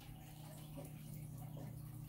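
Cat exercise wheel turning with a cat running inside it: faint soft ticks and light paw patter over a steady low hum.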